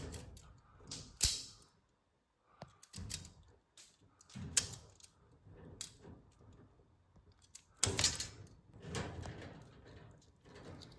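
Wire stripper cutting and stripping electrical wires: several sharp snips and clicks a few seconds apart, with rustling of the wires being handled between them.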